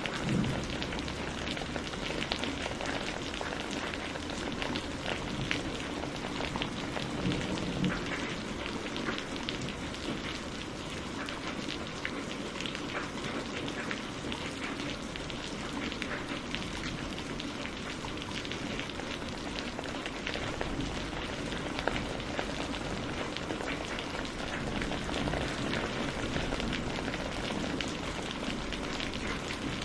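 Steady rain falling on a surface, a dense, even patter of drops.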